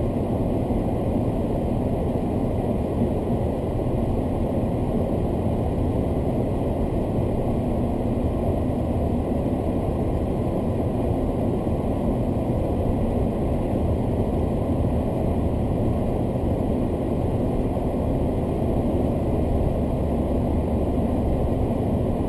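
Steady low rumble of a car's engine and road noise inside the cabin, picked up by a dashcam microphone; the car is stopped and idling for much of it.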